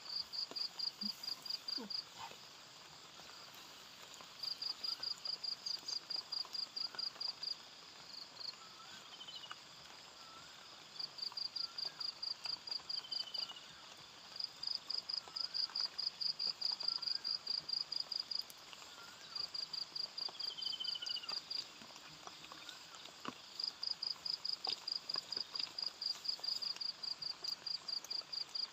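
An insect calling in high, rapid pulsed trills, about seven pulses a second, in bouts of two to four seconds with short pauses between.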